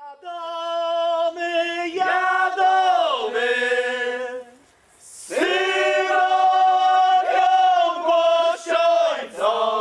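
Men's folk group singing unaccompanied: two long, drawn-out phrases with a brief pause about five seconds in.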